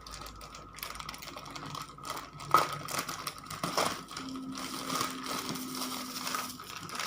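Packaging being unwrapped and a newly delivered item handled: crinkling with scattered sharp clicks and knocks, the loudest about two and a half seconds in. A faint steady hum joins a little past halfway.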